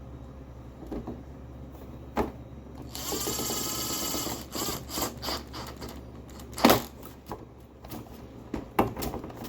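Cordless drill/driver running for about a second and a half, driving a small 4mm hex screw into a motorcycle fairing panel. Scattered clicks and knocks of plastic panel and tool handling follow, the loudest a sharp knock about two-thirds of the way through.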